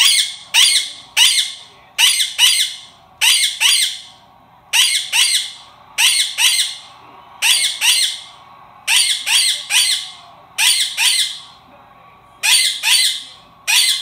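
Indian ringneck parakeet (rose-ringed parakeet) screeching: loud, harsh calls repeated over and over, about two a second and often in quick pairs.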